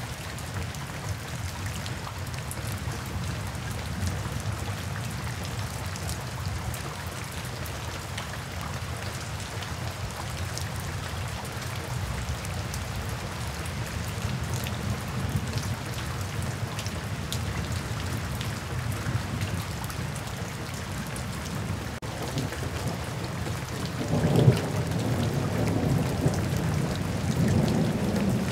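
Steady rain falling and splashing on a wet paved path, with a low rumble of thunder underneath that swells louder near the end.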